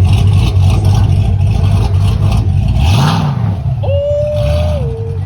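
Chevy car engine running, its note rising and falling once about three seconds in as it revs. A short held tone sounds over it about four seconds in.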